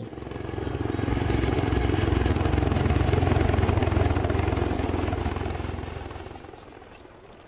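A helicopter flying past: its engine and rotor chop swell, peak in the middle, and fade away.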